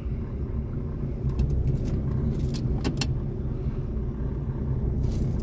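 Ford Verona's VW AP four-cylinder engine idling at a standstill, a steady low rumble heard inside the cabin, with a few light clicks or rattles near the middle.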